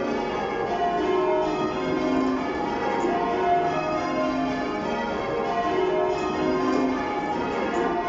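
Change ringing on a ring of church bells cast in 2017, tenor 21 cwt in E-flat: an unbroken, evenly paced run of bell strikes, one after another, their tones overlapping.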